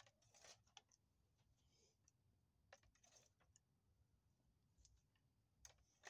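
Faint scattered rustles and ticks of wood-chip mulch being scratched and kicked by a chicken, coming in three short bursts.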